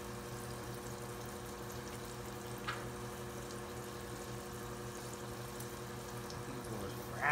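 Hot oil bubbling steadily in a deep fryer as zucchini fries cook, over a steady low hum.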